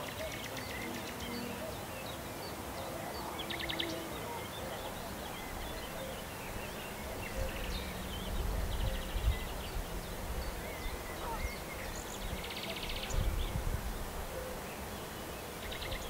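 Songbirds singing, a scatter of chirps and whistles with short rapid trills repeating every few seconds, over a steady background hiss. A low rumble swells about halfway through and again a few seconds later.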